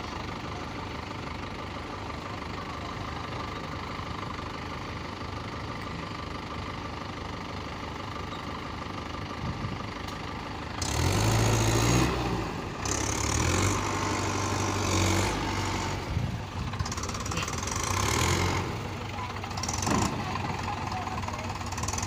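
Diesel engine idling steadily. About halfway through, the Mahindra SP Plus tractor's engine is opened up hard and labours in uneven surges as it pulls away with an overloaded mud trolley.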